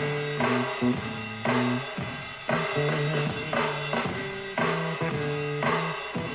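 Funk music with a drum kit and a bass line, a groove that repeats about every two seconds, played through a Bose SoundLink Color Bluetooth speaker.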